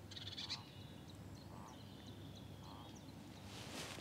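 Quiet outdoor ambience with faint birdsong: scattered high chirps and short whistled notes, and a lower call repeated roughly once a second.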